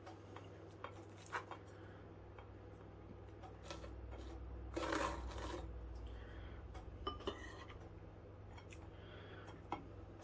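Faint kitchen handling sounds while a sandwich is made: a few light clicks and a brief scrape about five seconds in, over a low steady hum.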